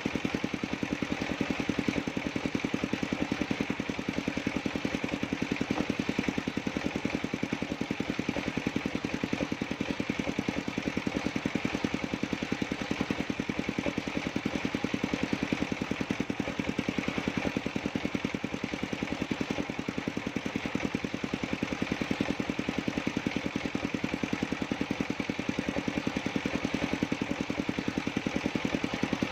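Sawmill engine driving a circular saw, running steadily with an even, rapid pulse and no change in pitch.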